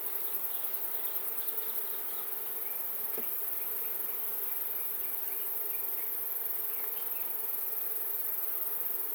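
Honeybees buzzing steadily in a hum from an open hive during a frame inspection, with one faint click about three seconds in.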